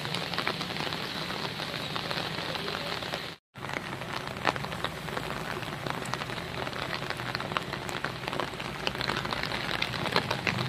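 Rain falling on a wet road: a steady hiss with scattered drop splashes. The sound cuts out for a moment about three and a half seconds in.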